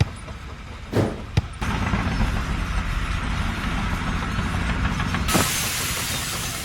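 Two knocks, then a heavy vehicle or machine engine running steadily; about five seconds in, a loud steady hiss of escaping air or steam starts over it.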